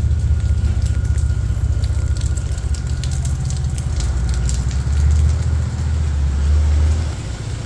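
City street traffic in the rain: a steady low rumble of vehicle engines, with scattered crackling ticks of raindrops, thickest in the middle.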